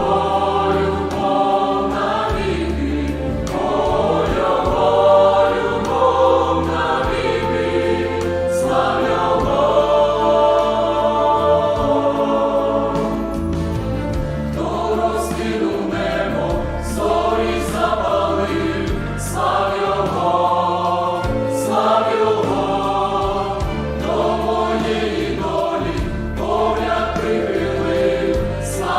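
Youth choir singing a hymn in several voice parts over an instrumental accompaniment with a bass line.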